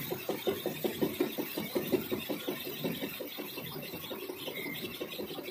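Lathe running and turning a steel bevel pinion blank, the cutting tool peeling off long ribbon chips. The machine gives a steady, even pulsing of about six beats a second.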